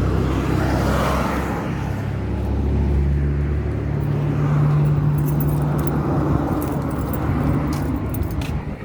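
A motor vehicle's engine running, a steady low hum that swells a little in the middle, with faint light clicks near the end.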